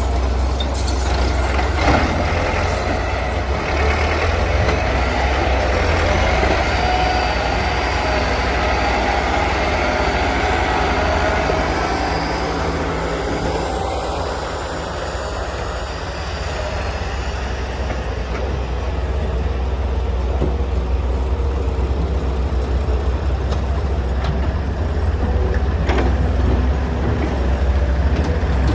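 Wheeled excavator's diesel engine running steadily under load while digging and loading dirt, with a couple of brief knocks from the bucket or machinery.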